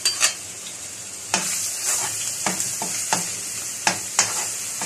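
Minced garlic frying in hot cooking oil in a wok: the sizzle starts suddenly about a second in and then holds steady. A metal spatula knocks and scrapes against the pan again and again as the garlic is stirred.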